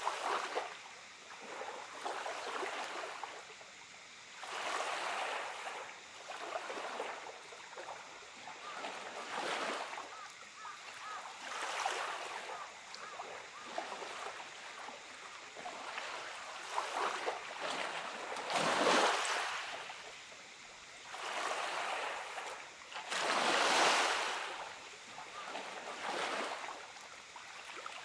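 Small sea waves washing up and drawing back on a pebble-strewn beach, each wash swelling and fading every few seconds. The two biggest washes come in the last third.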